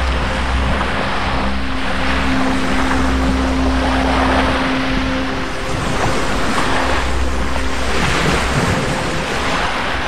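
Black Sea surf washing onto the beach in repeated surges a couple of seconds apart. A steady low engine-like hum runs underneath, strongest in the first half.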